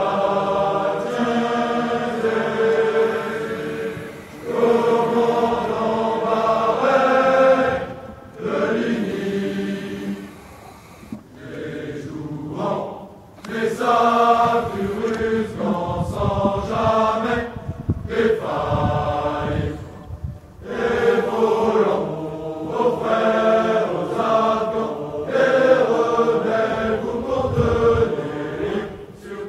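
Large choir of officer cadets singing an ode a cappella in phrases with short breaks between them, softer through the middle stretch and fuller again toward the end.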